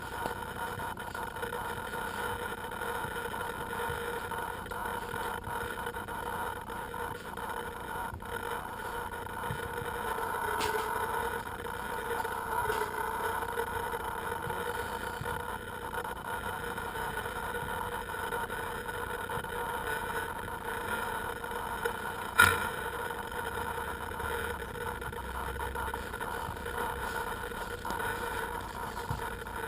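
Electric motors of a small FPV aircraft running steadily, a droning hum with several fixed tones that sways slightly in pitch for a few seconds. A single sharp click, the loudest sound, comes about two-thirds of the way through.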